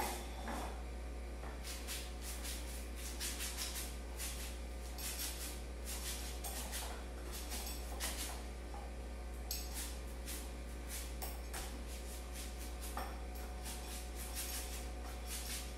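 Paint being applied to a wall in repeated swishing strokes, at an irregular pace of roughly one or two a second, over a steady low hum.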